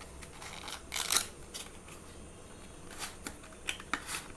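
An earphone retail box being opened by hand: short rustles and clicks of the packaging, the loudest about a second in, with a few smaller ones near the end.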